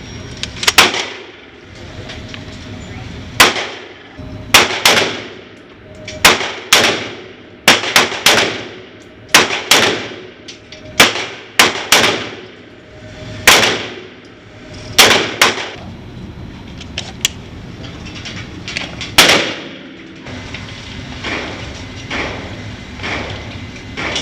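A string of about twenty gunshots fired in quick succession, irregularly spaced and often in pairs, each a sharp crack with a short ringing tail, stopping about twenty seconds in.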